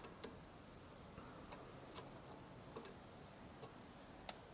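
Near silence with about six faint, sharp clicks at irregular intervals, small metal parts being handled on a motorcycle carburettor.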